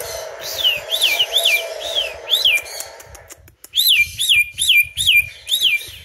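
Cockatiel whistling its song: a string of clear whistled notes, each rising then dropping in pitch, about four in the first half, a short pause, then about six in quicker succession.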